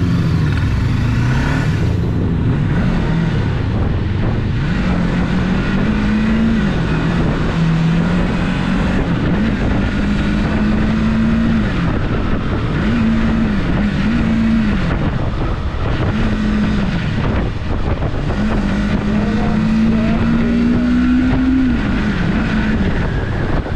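Rusi Cyclone 400S motorcycle engine running under way, its pitch repeatedly rising under throttle, holding, then dropping as the throttle eases off, over steady road and wind noise.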